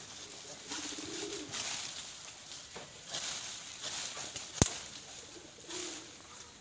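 A pigeon cooing twice, over a few scratchy strokes of a blade cutting into a litchi branch, with one sharp click about four and a half seconds in.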